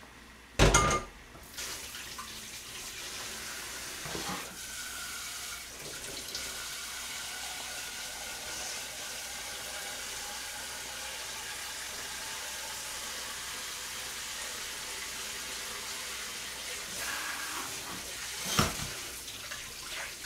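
Kitchen tap running steadily into the sink as a pot is rinsed, with a loud clank about a second in and another knock near the end.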